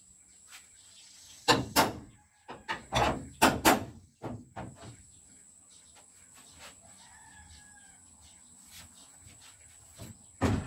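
A hammer knocks on a Toyota Celica's steel bonnet panel, about seven sharp metallic blows in quick succession. A rooster crows faintly a few seconds later, and one heavier thump comes near the end.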